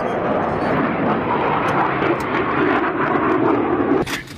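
Loud, steady noise of a jet aircraft engine running nearby, dropping away abruptly near the end.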